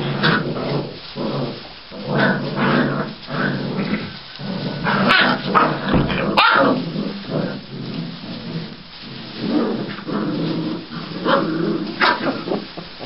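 Six-week-old Polish Tatra Sheepdog puppies growling and yipping at each other in play, in repeated short bouts.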